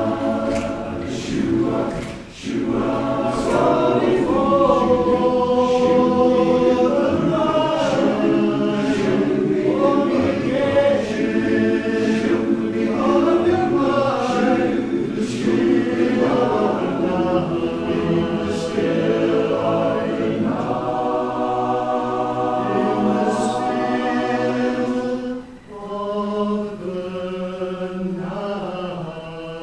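Barbershop chorus singing a cappella in close harmony. Near the end it settles into long held chords, broken by a short break.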